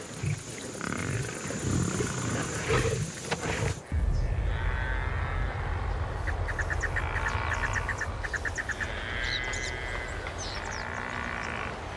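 Male lion growling as it feeds on a giraffe carcass. About four seconds in, this gives way to a steady low rumble with a rapid run of high ticks and short high calls over it.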